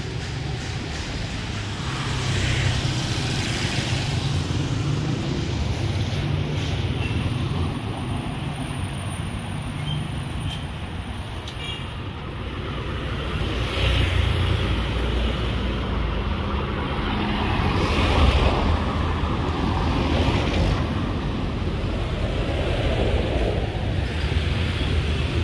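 Street traffic: motor vehicles, motorcycles among them, running and passing on a city road. A steady low engine rumble swells louder as vehicles go by about 14 and 18 seconds in.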